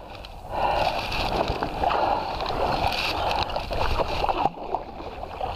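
Paddle strokes splashing and water gurgling against the hull of an inflatable canoe under way on a small river, a steady watery rush with no voices.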